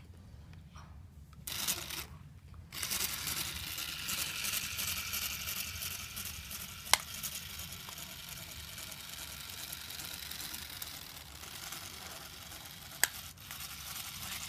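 Small Lego electric motor and gear train driving a toy car across carpet. It whirs briefly, then runs steadily from about three seconds in, with two sharp clicks along the way.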